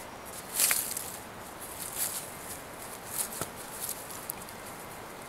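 Dry leaf litter rustling and crackling, with a wooden knock, as the legs of a lashed stick tripod are spread and set down on the forest floor. Three short scratchy bursts, the loudest about a second in.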